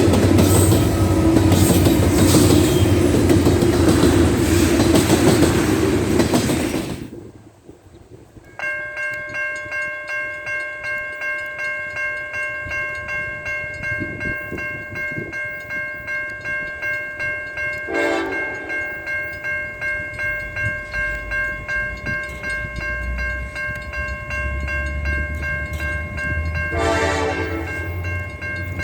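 A freight train rumbling past on the rails. Then an abrupt cut to a railroad grade-crossing bell dinging steadily, about one and a half times a second. Two short locomotive horn blasts sound over it, with a diesel locomotive's low rumble building toward the end.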